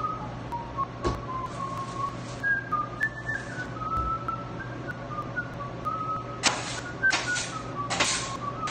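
A person whistling a slow, wandering tune over a steady low hum, with dull knocks about a second in and again at four seconds. In the last two seconds, several short bursts of hiss or scraping cut in.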